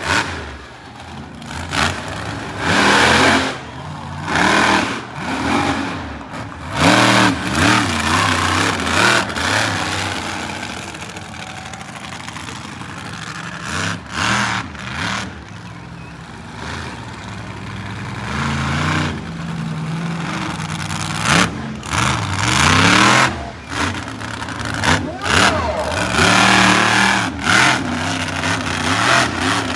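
Monster truck engine revving hard in repeated bursts, its pitch climbing and dropping every second or two. It settles into a steadier, lower run through the middle before revving again.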